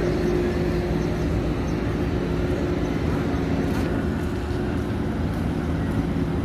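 Street traffic noise with a steady low engine hum running throughout.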